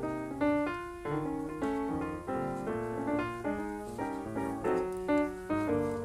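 Background piano music, a steady run of individual notes with chords underneath.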